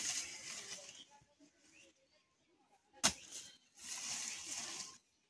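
Rustling in leafy undergrowth, with a single sharp click about three seconds in.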